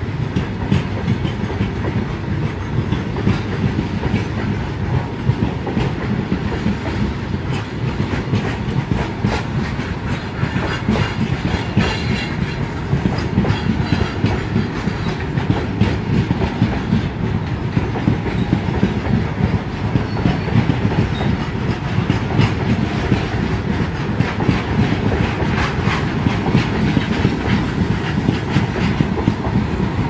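Long freight train of covered goods wagons rolling past close by: a steady rumble with a rapid, continuous clatter of wheels over the rail joints.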